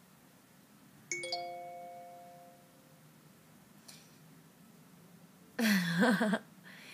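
A single bell-like ding about a second in, a few clear tones fading out over a second or two. Near the end a woman makes a short, louder vocal sound.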